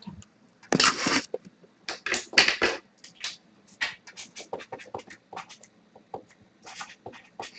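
Irregular scratching, scraping and light tapping from hands handling objects at close range, a string of short clicks and rustles.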